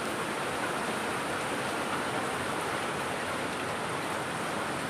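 Steady rush of a waterfall and stream, an even, unbroken water noise.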